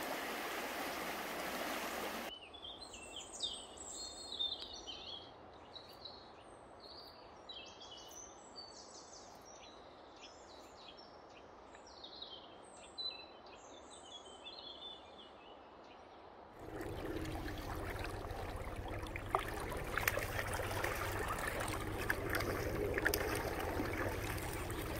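Rushing river water, which drops away after about two seconds to a quieter stretch where songbirds sing in many short chirps and trills. About two-thirds of the way through, loud rushing water returns, with scattered sharp clicks.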